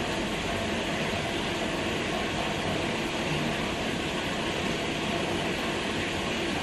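Steady, even rushing background noise with no distinct events in it.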